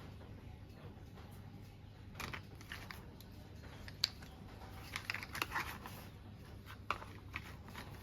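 Toy parts being handled during assembly: scattered light clicks and short crinkly rustles, with a sharp click about four seconds in and another near seven seconds.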